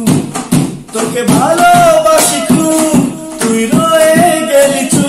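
A Bengali song: a man singing over instrumental backing with a regular percussion beat.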